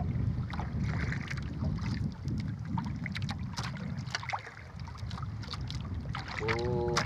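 Steady low wind rumble on the microphone aboard a small boat at sea, with scattered light clicks and knocks from handling. A brief voice sounds near the end.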